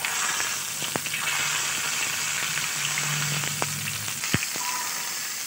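Hot oil sizzling steadily around a whole chicken frying in a steel pan, with a few sharp clicks of a metal spoon against the pan as the oil is spooned over the bird.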